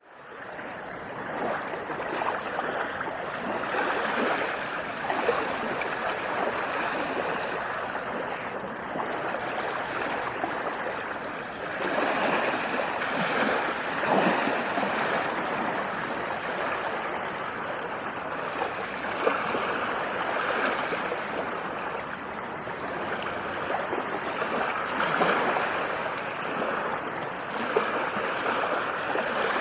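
Ocean waves washing on the shore: a steady rush of water that swells every several seconds, fading in at the start.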